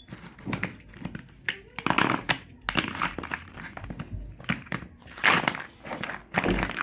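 Plastic toy building blocks being handled, clattering and clicking against one another in irregular bursts.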